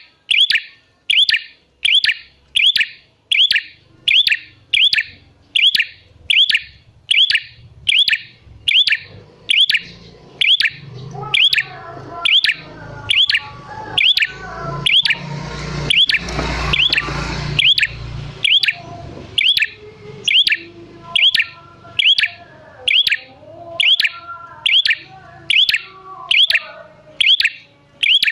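Prenjak merah (ashy tailorbird) calling, one short sharp downward-sweeping note repeated evenly about twice a second without a break. A rushing noise with a low rumble swells and fades in the middle, and fainter, lower bird notes run underneath in the second half.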